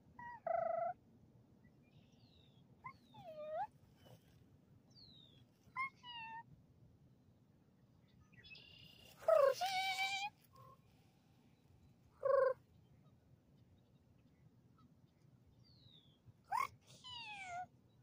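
A string of short bird-like calls and squawks, several seconds apart, some sliding in pitch; the longest and loudest, a harsher call, comes about halfway.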